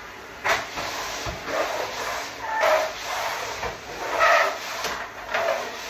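Vacuum cleaner running steadily, with a few short voice sounds over it.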